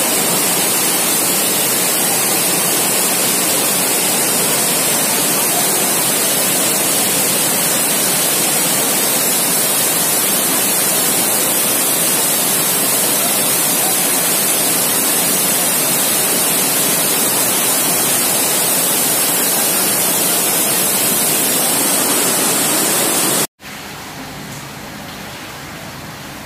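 Floodwater rushing down a street in a torrential downpour: a loud, steady roar of churning water. Near the end it cuts suddenly to a much quieter, steady hiss of rain.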